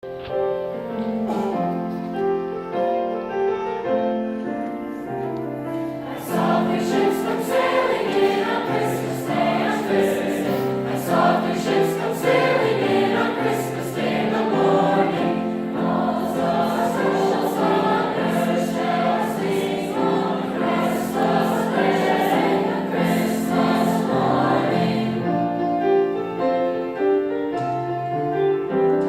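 A high school choir singing, softer and thinner for the first few seconds and fuller from about six seconds in.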